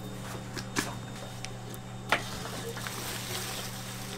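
Gloved hand starting to mix diced radish and vegetables in a large steel bowl, with a soft squishing rustle, over a steady machine hum. There are a couple of sharp clicks, the loudest about two seconds in.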